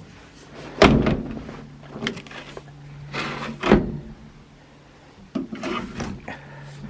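Door of a 1953 Austin A30 being worked by hand: two sharp metal clunks, about a second in and near four seconds, then lighter clicks and rattles of the latch and handle.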